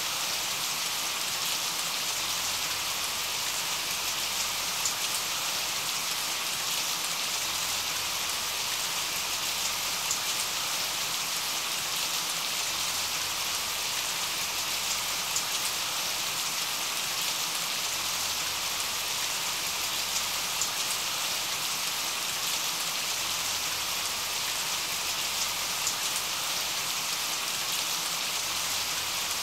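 Steady rain: an even hiss with small drop ticks scattered through it, the masking bed of a subliminal audio track.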